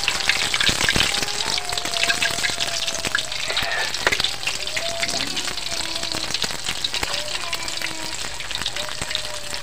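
Fish patties deep-frying in hot oil in a wok: a steady crackling sizzle with many small pops.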